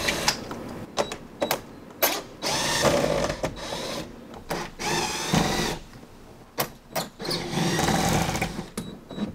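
Cordless drill with a Phillips bit running in several short bursts with pauses between, unscrewing the Phillips screws that hold the stock roof rack to the roof; the motor's pitch wavers as it runs.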